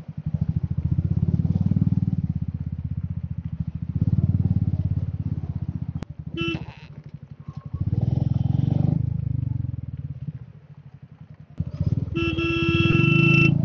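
Royal Enfield Meteor 350 single-cylinder engine running on the move, its pulse rising and falling with the throttle and easing off for a moment shortly before the end. A horn sounds briefly about halfway through, then twice more near the end.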